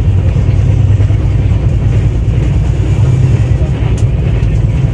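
Steady low rumble and hum inside an Indian Railways passenger coach, with a faint click about four seconds in.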